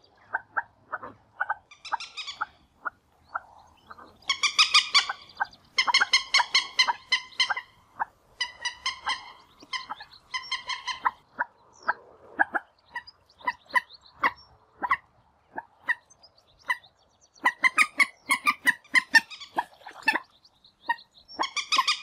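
Common moorhens giving their fighting call: many short sharp notes, broken several times by quick runs of louder, harsher notes lasting a second or two.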